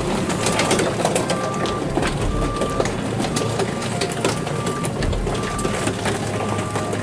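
Hydraulic boat transporter carrying a sailboat across the yard: its engine runs under a steady beep about once a second, with gravel crunching and crackling under the wheels.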